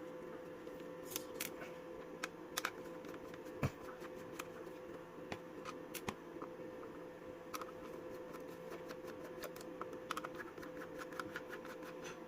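Light, scattered clicks and ticks of a screwdriver turning out the small screws of a plastic cordless-drill lithium battery pack casing, over a faint steady hum.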